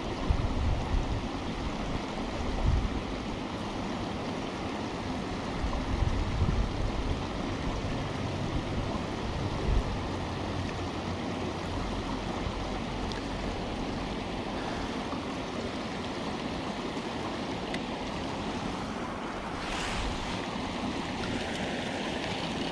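Steady rush of water running in a small creek, with a few short low thumps in the first ten seconds.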